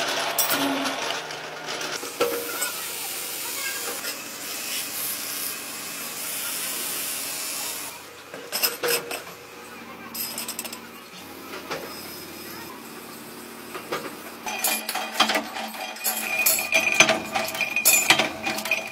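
Metalworking shop sounds: a steady hiss for several seconds, then scattered knocks, and in the last third a dense run of metallic clinks and clatter of steel rods and metal parts knocking together.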